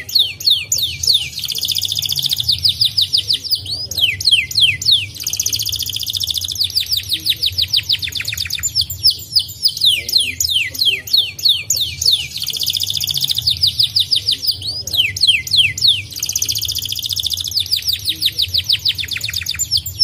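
White canary singing a continuous song: runs of quick falling whistles, several a second, alternating with rolling buzzy trills, the pattern coming round again every few seconds.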